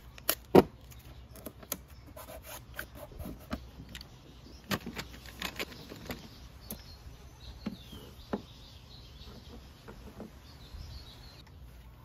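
Blue painter's tape pulled and torn from its roll, with a couple of sharp rips in the first second. Then scattered light clicks and scrapes as a Phillips screwdriver backs a screw out of a Vespa LX side-panel cover.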